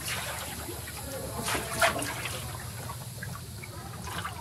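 Water sloshing and trickling around an inflatable canoe moving through shallow water, with a few short splashes, the loudest a little under two seconds in.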